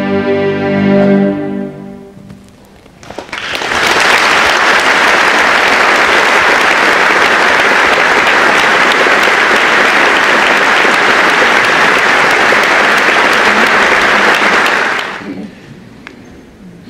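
A string orchestra's closing chord fades away. After a short pause the audience applauds steadily for about twelve seconds, and the applause dies out near the end.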